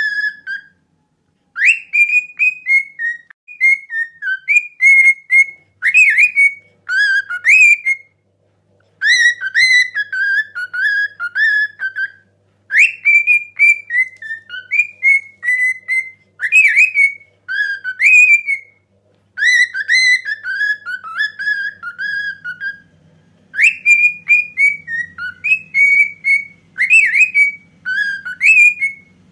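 Cockatiel whistling a mehter (Ottoman military march) melody in short phrases of high, sliding notes, with brief pauses between phrases.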